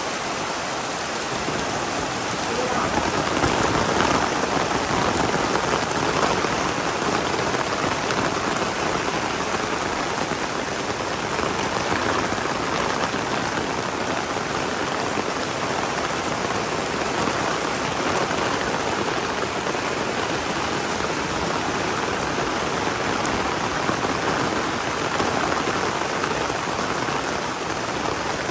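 Heavy tropical rain falling steadily in a dense, even hiss of drops, a little heavier a few seconds in.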